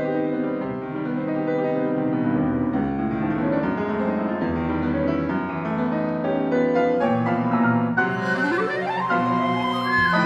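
Solo piano with a chamber ensemble of flute, clarinet, violin and cello playing a contemporary classical concerto, dense sustained notes. Quick rising runs sweep upward in the last two seconds.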